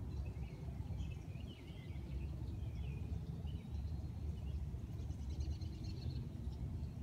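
Several small songbirds chirping and twittering, with a quick trill about five seconds in, over a steady low rumble.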